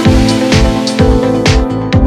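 Electronic background music with a steady dance beat, a kick drum about twice a second under sustained synth chords.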